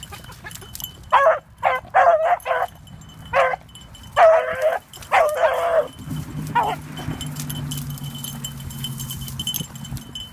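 Beagle baying: a quick run of short bays, then two longer drawn-out bawls, stopping about seven seconds in. This is the hound giving tongue on a rabbit's scent. A low steady hum runs through the last few seconds.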